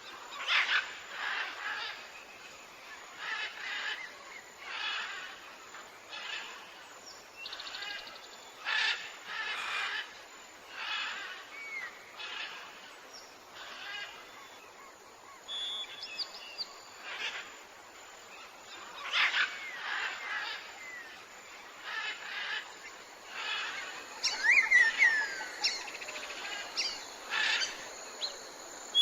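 Tropical jungle birds calling: one harsh call repeated every second or two, with a flurry of quick chirps and whistles near the end.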